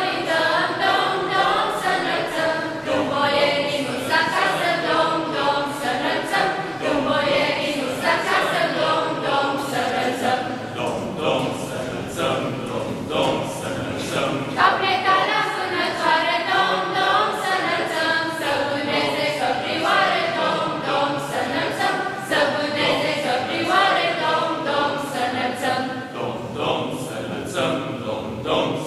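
A small group of young people singing a Romanian Christmas carol (colind) together as a choir, phrase after phrase with short breaks between lines.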